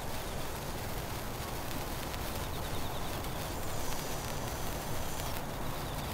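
Hand-held sparklers burning, a steady fizzing crackle.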